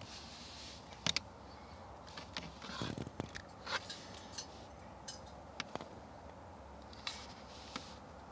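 Mazda RX-8's twin-rotor rotary engine running with a steady low hum, broken by irregular sharp ticks and pops. The spluttering sounds like an exhaust leak, and the owner puts it down to a misfire on the number one rotor.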